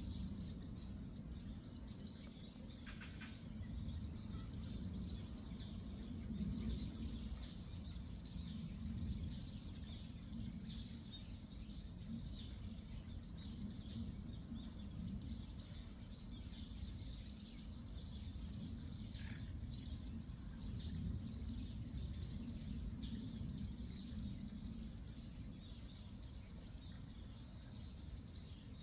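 Many small songbirds chirping and twittering continuously over a steady low rumble of outdoor ambience.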